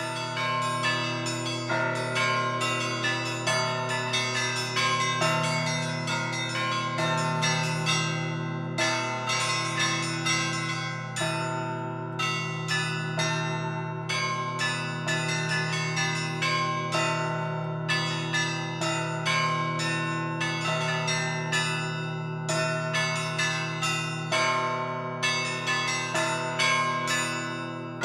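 Russian Orthodox church bells ringing a peal: quick repeated strikes of the smaller bells over the long, steady hum of the larger bells.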